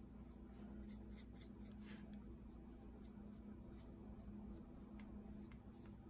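Faint, soft strokes of a watercolour paintbrush on paper, over a low steady hum.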